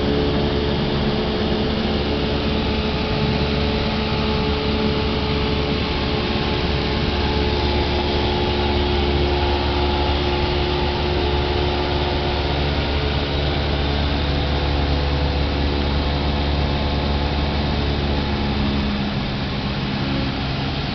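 Steady drone of a light single-engine high-wing airplane's piston engine and propeller, heard inside the cabin in flight, with rushing air noise over it. It dips slightly in level near the end.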